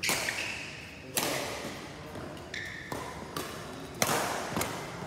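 Badminton rally: rackets striking the shuttlecock in sharp smacks roughly a second apart, echoing in a large hall, with a short squeak of shoes on the court about halfway through.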